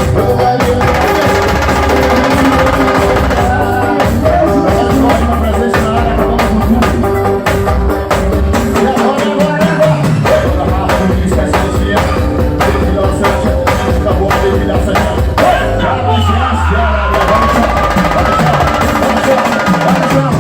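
Band playing amplified music with a busy drum-kit and percussion beat and sustained instrument lines. The drums drop out briefly about sixteen seconds in.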